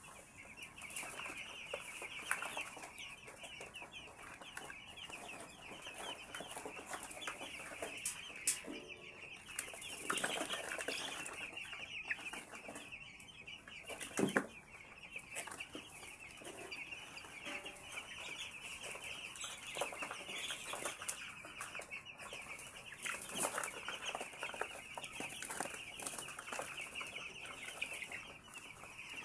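A large flock of 11-day-old chicks peeping continuously, many short high chirps overlapping into a steady chatter. A few sharp knocks and some rustling and wing flutters break in now and then.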